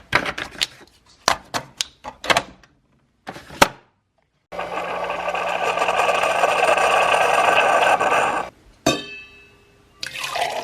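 Liquid running into a cup for about four seconds, steady and starting and stopping abruptly, as coffee is made. Before it come several sharp clicks and knocks of cups and kitchen things being handled, and after it one sharp clink that rings briefly.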